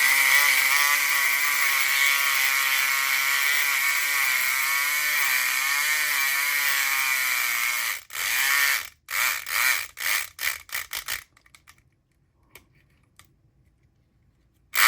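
Southord E500XT 4.5-volt electric pick gun buzzing steadily with its pick in a Schlage Everest lock, its pitch wavering slightly, for about eight seconds. It is then run in several short bursts, stops for a few seconds, and starts buzzing again at the very end.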